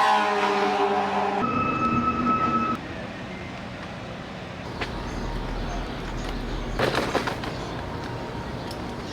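Street traffic: motor vehicles passing, with a steady pitched engine or drive whine over the first three seconds that then cuts off, leaving a general traffic hum and a low rumble a few seconds later.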